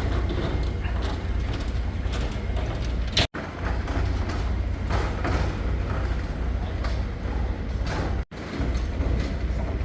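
Steady outdoor background noise with a low rumble, cut off by two brief dropouts about three seconds in and again near eight seconds.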